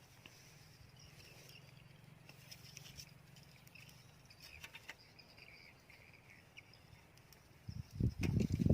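Faint insects chirring in two high bands over a steady low hum, with scattered small ticks. Near the end, loud irregular low thuds and rumbling break in.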